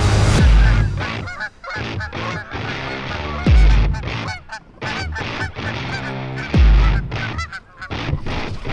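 A flock of Canada geese honking, many overlapping calls, over background music with a heavy bass hit about every three seconds.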